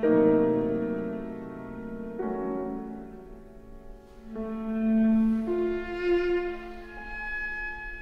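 Viola and piano playing a slow, quiet classical passage: a piano chord is struck at the start and another about two seconds in, then the viola holds long bowed notes that step upward to a high held note near the end.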